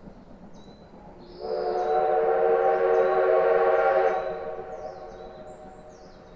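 Steam locomotive whistle sounding one long blast of about three seconds, starting about a second in and dying away gradually.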